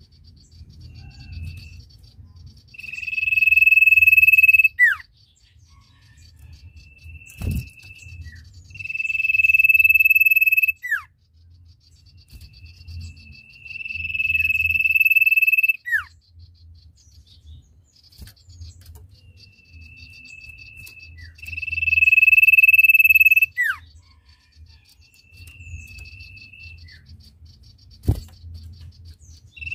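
Common iora (sirtu) singing long, loud drawn-out whistles, each held on one high pitch for a second or two and ending in a sharp downward slur, repeated every few seconds with shorter notes between.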